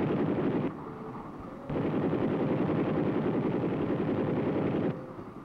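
Helicopter in flight, heard from inside the cabin with the door open: a steady, dense rotor and engine drone. It drops abruptly in level for about a second near the start and again near the end.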